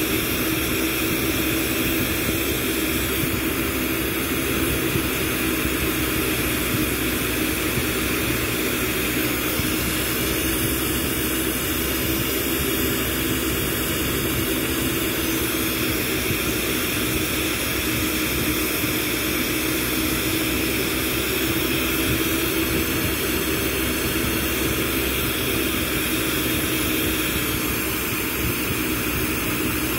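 Glassworking bench torch flame burning steadily with an even rushing noise as tubing is heated in it, and a faint steady low hum underneath.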